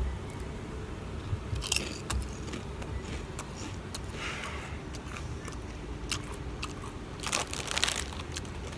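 Someone chewing a ripple-cut potato chip, with crisp crackles and several louder crunches, the biggest near the end.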